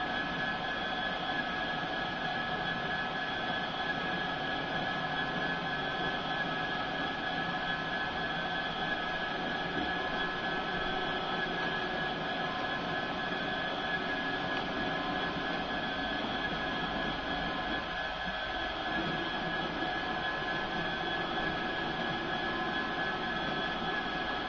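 DCC sound decoder in an OO gauge model diesel locomotive playing a steady diesel engine idle through the model's small speaker.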